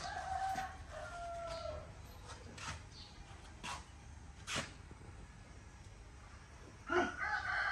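A rooster crowing: one held crow of about a second and a half at the start, and another crow beginning near the end. A few sharp knocks fall in between.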